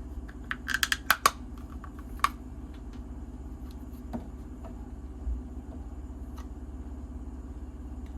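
Small parts of a quick-grip bar clamp clicking and knocking as it is handled and checked after being put back together. There is a quick cluster of sharp clicks about a second in, then a few single taps, over a steady low background hum.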